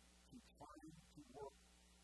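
A man's voice speaking a few quiet words over a steady low hum.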